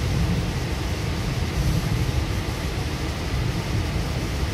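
Running noise inside a Goninan K-set double-deck electric train car in motion: a steady low rumble from the running gear and track, with an even hiss over it.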